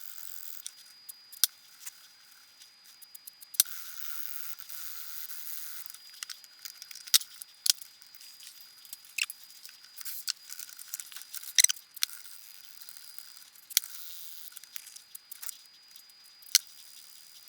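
Scattered sharp clicks and taps from handling the receiver and its circuit boards with hand tools, over a faint steady high whine.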